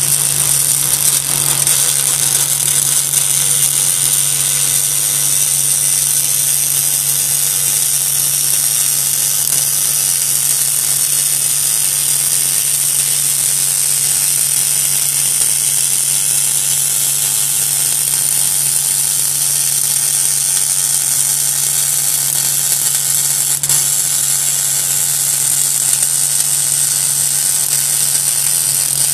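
MIG welding arc from a Bug-O CW5 automatic circle-welding carriage laying a circle weld on steel plate, crackling and buzzing steadily without a break, over a steady low hum.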